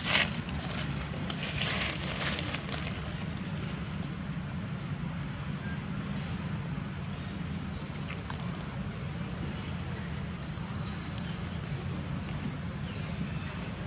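Dry leaf litter rustling and crackling under a baby macaque's hands and feet as it crawls about, over a steady low rumble, with short faint high chirps now and then.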